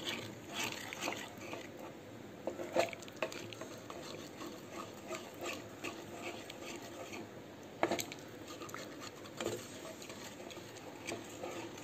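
Wooden spatula stirring thin vegetable soup in a pan, mixing in the ground spices: liquid sloshing with scattered light scrapes and knocks of the spatula against the pan, one a little sharper near the eight-second mark.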